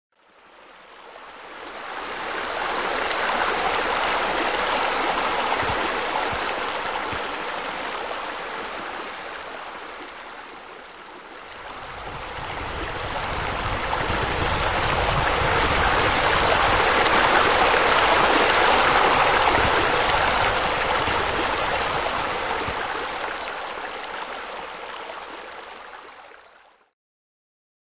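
Flowing water rushing steadily, like a stream or garden fountain. It swells in slowly, dips about eleven seconds in, swells again to its loudest, and stops about a second before the end.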